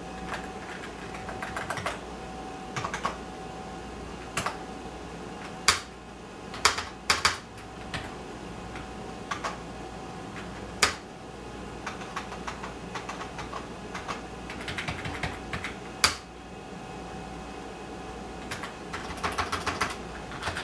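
Typing on a computer keyboard: bursts of key clicks with pauses between them, and a few louder single key strikes. A faint steady hum sits underneath.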